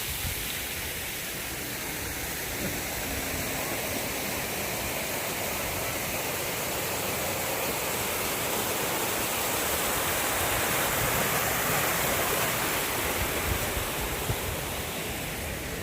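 Waterfall: a steady rush of falling water that swells a little midway and eases near the end.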